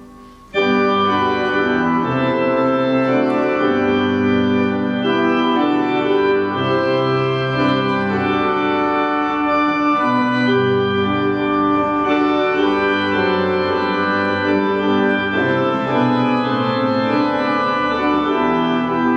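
Organ playing slow, sustained chords, starting abruptly about half a second in.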